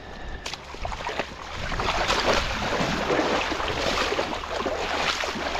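Nurse shark thrashing in ankle-deep water at the shoreline, a choppy splashing that swells about a second and a half in and keeps going.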